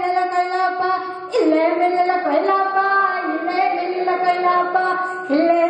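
A young woman singing a Malayalam nadan pattu (Kerala folk song) solo into a hand-held microphone, holding long, steady notes, with short breaks about a second in and again near the end where a new phrase begins.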